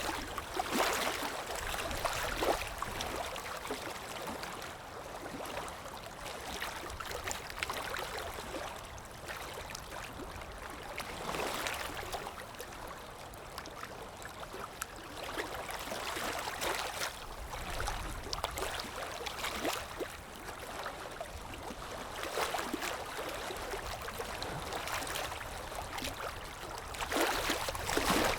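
Moving water lapping and splashing, swelling and easing in surges every few seconds.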